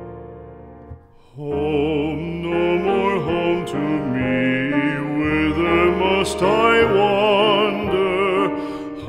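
Background music: a piano chord dies away, then about a second and a half in a singer with strong vibrato starts over piano accompaniment, in an operatic style.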